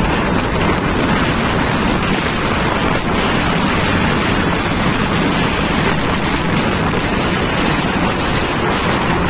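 Steady rush of wind buffeting the microphone over the rumble of passing road traffic, including trucks.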